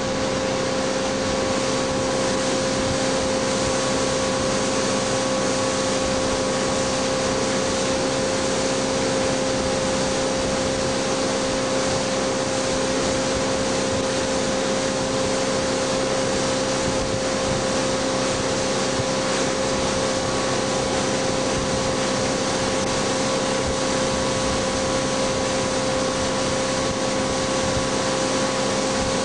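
Tow boat's engine running steadily at towing speed under the rush of wind and water, an even noise with a constant hum on top.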